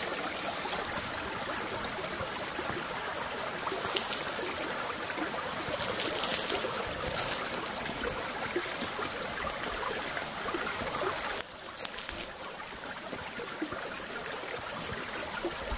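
Small rocky stream running steadily, water trickling and splashing over stones; it steps a little quieter about eleven seconds in.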